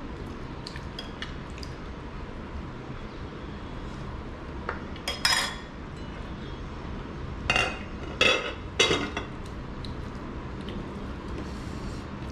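Steel serving spoon and steel dishes clinking during a meal: a pair of sharp clinks about five seconds in, then three more a few seconds later, with a few faint taps before them, over steady background noise.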